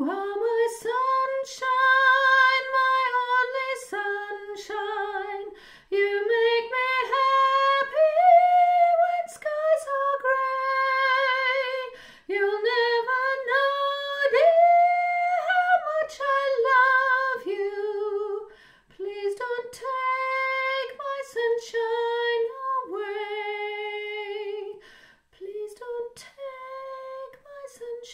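A woman's soprano voice singing a slow melody in long held notes with slight vibrato, pausing briefly for breath between phrases.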